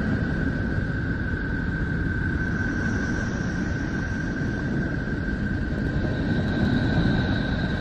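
Space-sound clip presented as the sound of the planet Neptune: a steady low rumbling drone with a steady high whistling tone above it, and fainter higher tones joining about three seconds in.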